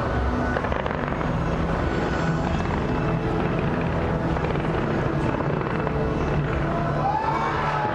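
Continuous fireworks barrage: a dense run of booms and crackles that merges into a steady low rumble.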